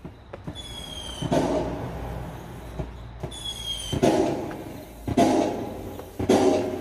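Electric LED firework light playing firework sound effects through its speaker: two short whistles, each followed by a bang with crackle. Further bursts follow about a second apart.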